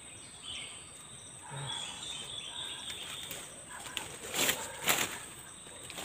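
A bird's wings flapping in two short, loud bursts about four and a half and five seconds in, likely a dove caught on a lime-stick struggling. A steady high insect drone runs underneath.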